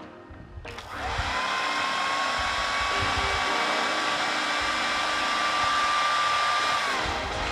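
Electric food processor running, its blade chopping green peas into a coarse mash. The motor starts about a second in, its whine rising and then holding steady, and it winds down near the end.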